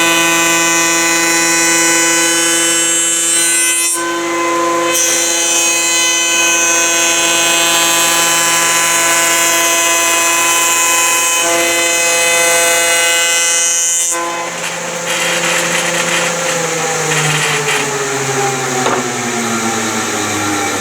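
Woodworking power tool's electric motor running at a steady, loud pitch. About fourteen seconds in it is switched off and winds down, its pitch falling slowly.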